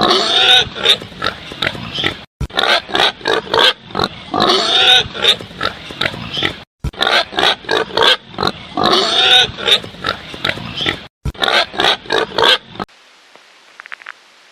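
An animal's rapid grunts mixed with squealing calls that bend in pitch. The same stretch of about four and a half seconds plays three times over, then cuts off abruptly about a second and a half before the end.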